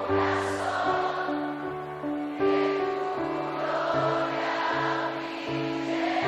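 Background music: a choir singing held chords over a slow, even bass line.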